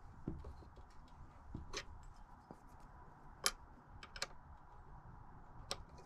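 Scattered light clicks and taps of tools and bicycle linkage parts being handled at a workbench, with four sharper clicks spread through.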